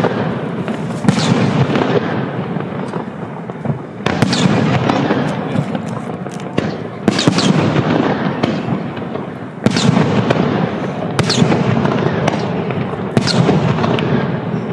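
Aerial fireworks shells bursting one after another, about every two to three seconds. Each burst is followed by crackling and a low rumbling echo.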